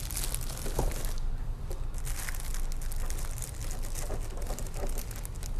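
Clear plastic packaging bag crinkling and rustling as the turntable inside it is handled and unwrapped, an irregular run of small crackles.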